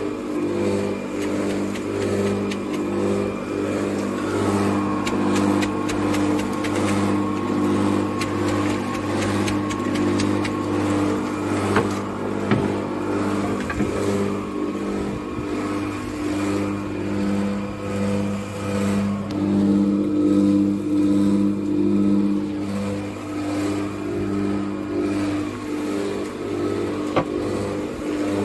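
A motor running steadily with a low hum that pulses gently, under light scraping and tapping from a rake working wet concrete in the first half.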